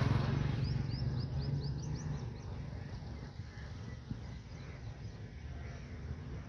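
A bird calls a quick run of about eight short rising chirps, from about half a second to two seconds in. Under it a motor vehicle's low engine hum fades away, leaving faint outdoor background noise.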